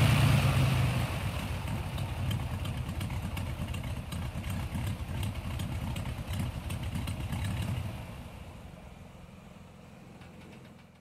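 Engine idling with a fast, even low throbbing, fading away over the last few seconds.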